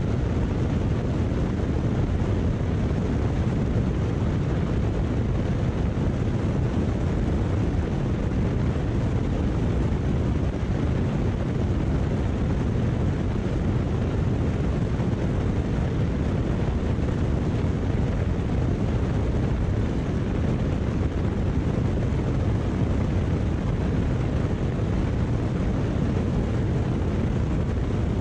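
Single-engine high-wing light airplane's piston engine and propeller running steadily at climb power just after takeoff, with a deep drone and wind rushing over a camera mounted outside on the airframe.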